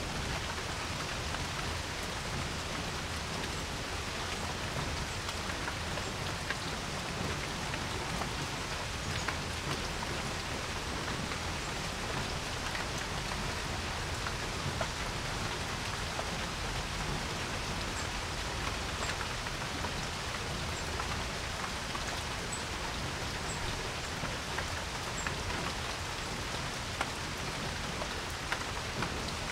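Steady rain falling on a porch, an even hiss with scattered individual drops ticking.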